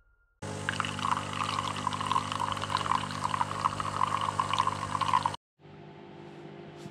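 Espresso machine dispensing coffee into a cup: a steady machine hum with the hiss and splash of two streams pouring. It starts about half a second in and cuts off abruptly about five seconds in.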